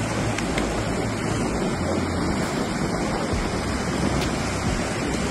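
Shallow surf washing in the shore break, a steady rush of water, with wind buffeting the microphone.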